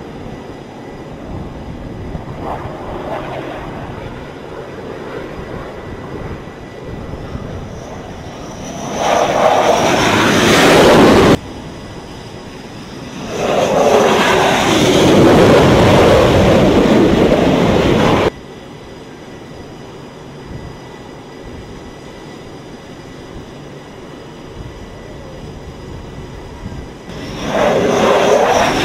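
Twin-engine F/A-18 Super Hornet jets (two GE F414 turbofans) passing low and loud on landing approach, in three passes; the first has a rising whine, and the first two cut off abruptly. Steady wind noise fills the gaps between passes.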